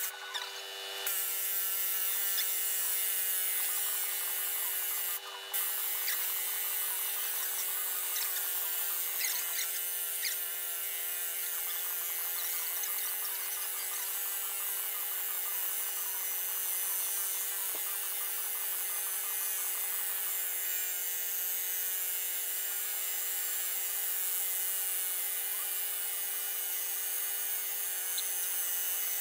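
Pneumatic impact wrench running almost without a break, hammering on the threaded rod of a sleeve-installing tool to press a cylinder repair sleeve into an engine block bore; it stops briefly twice in the first six seconds. The sleeve is going in extremely hard.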